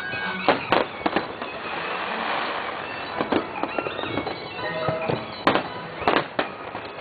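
Fireworks display: aerial shells bursting in a string of sharp bangs, with a stretch of crackling about two seconds in.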